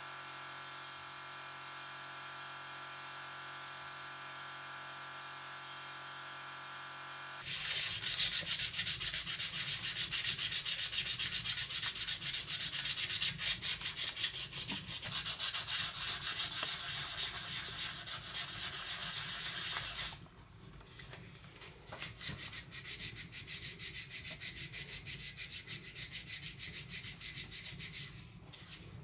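A steady machine hum with several fixed tones gives way, about a quarter of the way in, to hand sanding of a bare aluminium-alloy motor plate with a small piece of sandpaper. The sanding is a quick, continuous scratchy rubbing that turns lighter about two-thirds of the way through and stops just before the end.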